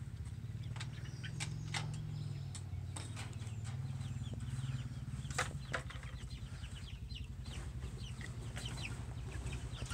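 Young meat chickens clucking and peeping in a wire cage, with a few sharp knocks from the cage being opened and handled, over a steady low hum.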